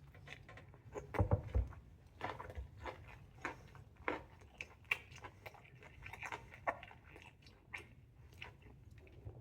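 A person takes a bite of a Chicago-style hot dog about a second in, then chews with a string of short, crisp, wet mouth clicks and smacks, close to the microphone.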